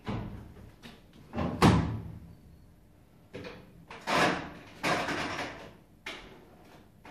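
Clunks and knocks from a washing machine being handled, its door shut or opened with a heavy slam about a second and a half in, then more knocks and clatter about four and five seconds in.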